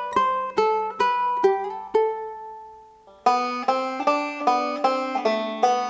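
Background music: a plucked-string instrumental in a banjo or mandolin style, picked notes about every 0.4 s over a steady low drone. About two seconds in, one note rings out and fades for roughly a second, then the tune comes back fuller.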